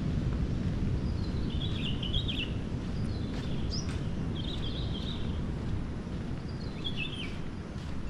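Birds giving short chirping phrases about five times, over a loud, steady low rumbling noise.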